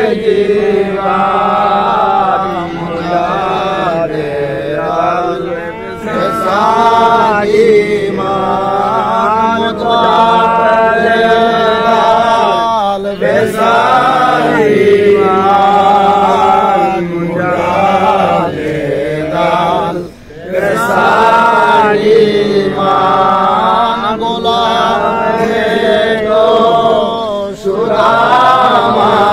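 Men's voices chanting a devotional chant together in long sung phrases, with short breaths between them and one brief pause about two-thirds through.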